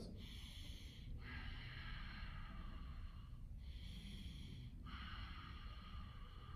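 A man's slow, deliberate breaths, each one a long faint rush of air lasting a second or two, with short pauses between them, taken while holding a strenuous balance stretch.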